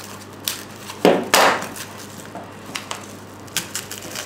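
Grey duct tape pulled off its roll with a short, loud rip about a second in, followed by a few light taps and crinkles as the strip is pressed down.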